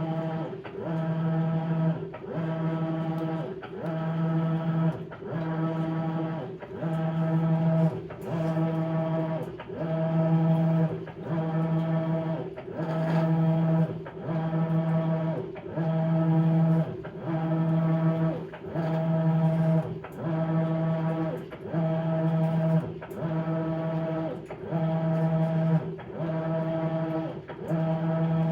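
Maytag Bravos XL top-load washer agitating a load of bedding: the drive motor hums in even strokes of about a second with short pauses between, about one stroke every second and a bit, as the wash plate turns back and forth.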